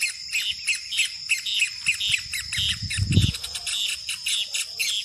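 Many small birds chirping rapidly over a steady high insect drone, with a brief low thump about three seconds in.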